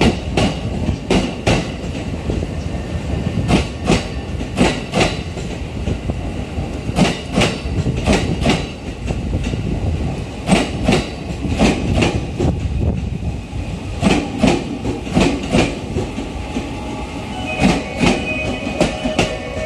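JR East E231 series electric train pulling out of the station past the platform, a steady rumble with its wheels clicking over the rail joints in quick clusters every few seconds.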